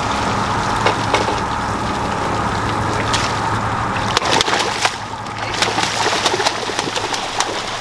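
A cownose ray thrashing its wings in shallow water, splashing, with a rapid run of sharp, hard splashes from about four seconds in.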